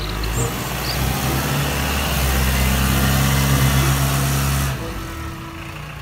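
Forklift engine running as the truck drives off, getting louder from about a second in and dropping back near the end.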